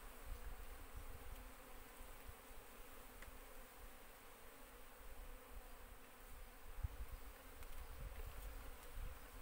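Asian honey bees (Apis cerana) buzzing in a steady low hum around a cluster of bees on an opened wooden hive, with a few soft low knocks from handling the hive.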